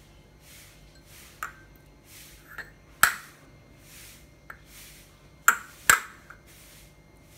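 A boiled egg tapped against the rim of a small ceramic bowl about six times to crack its shell. Each tap is a sharp click with a brief ringing ping from the bowl; the hardest comes near the middle and a quick pair falls near the end. Soft rubbing sounds of hands and shell come between the taps.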